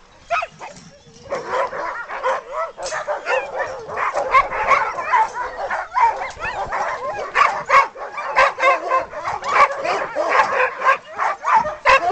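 Many sled dogs barking and yelping at once. After a short lull about a second in, the calls build into a dense, overlapping chorus. This is the excited noise of harnessed dogs hooked to a sled, eager to run.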